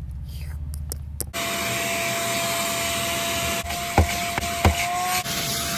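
A low rumble in a moving car, cut off about a second in by a shop vacuum running with a steady whine. Its hose nozzle knocks twice against the car's interior near the end.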